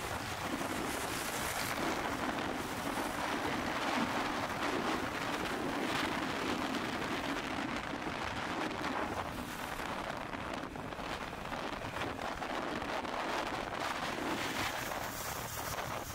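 Steady rush of wind on the microphone mixed with road and engine noise from riding a motorcycle in city traffic.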